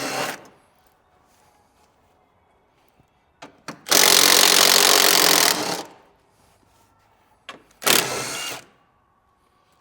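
Power impact gun running in three bursts, spinning out 10 mm bolts: a short burst at the start, a long one of about two seconds midway, and a shorter one near the end.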